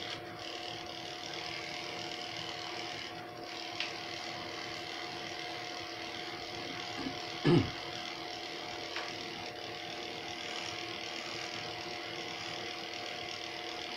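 Corded electric pet clippers running steadily, a hum with a hiss above it, as they are worked through a dog's coat. About halfway through there is one brief, loud sound that falls in pitch.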